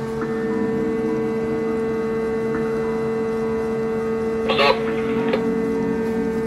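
Steady electrical and machine hum from the live edger's control cabinet, made of a few fixed tones with no change in pitch. About four and a half seconds in there is one brief scratchy noise.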